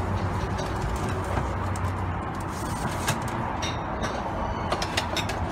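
Ceramic dishes clinking lightly as they are stacked on cupboard shelves, several sharp clinks in the second half, over a steady low hum.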